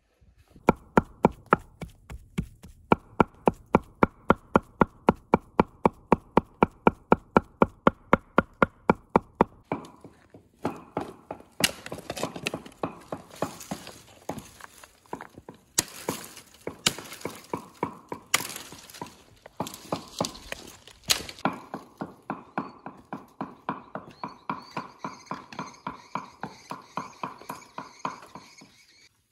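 Hatchet chopping firewood: a run of quick, even knocks about three a second, then heavier irregular blows with several sharp cracks of splitting wood, then even knocks again near the end.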